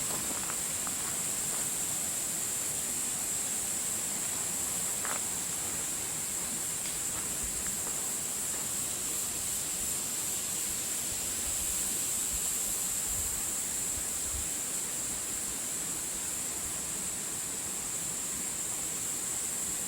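Steady outdoor forest ambience: an even hiss with a constant high-pitched drone over it and a couple of faint short chirps about five seconds in.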